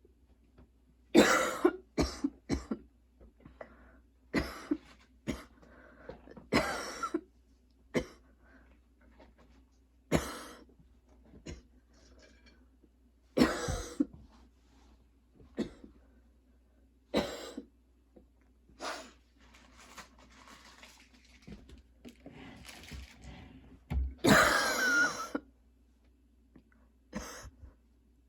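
A young woman's coughing fit: repeated sharp coughs, singly and in quick clusters of two to four, with throat-clearing and breaths between, and the longest, loudest bout near the end. It is a persistent cough that her current medication is not controlling.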